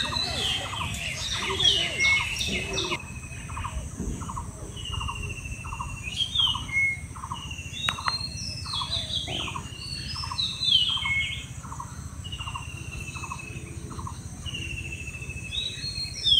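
Birds calling: one repeats a short note evenly, about two to three times a second, while others give higher chirps and short whistles, the loudest coming every few seconds. A thin steady high tone and a low rumble run underneath.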